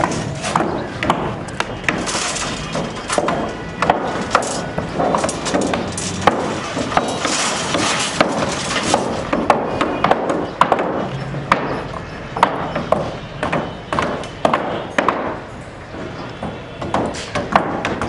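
Irregular sharp knocks and bangs on the wooden plank formwork of a building site, a few strikes at a time over steady site noise.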